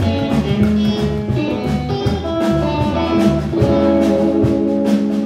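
Live band playing with electric guitar, upright double bass and drum kit.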